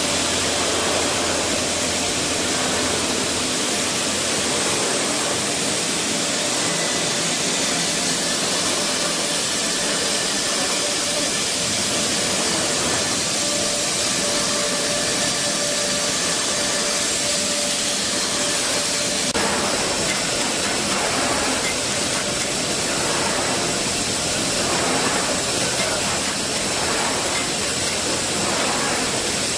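Steady factory machinery noise with a constant hiss. It changes character abruptly about two-thirds of the way in.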